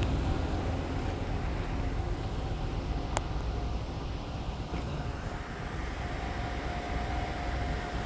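1992 Cadillac DeVille's 4.9-litre V8 idling steadily, running better after being hydrolocked, with a single sharp click about three seconds in.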